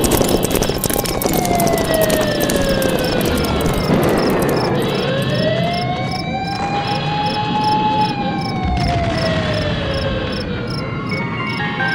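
Crickets chirping in an even, rapid pulse, with a slow siren-like wail that falls, then rises and falls again over several seconds.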